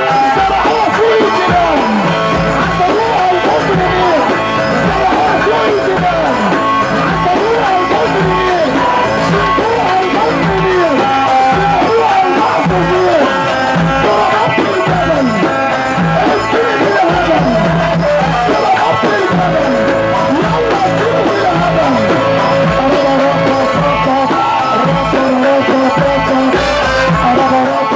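Loud wedding music: a fast melody full of sliding, ornamented notes over a steady drum beat.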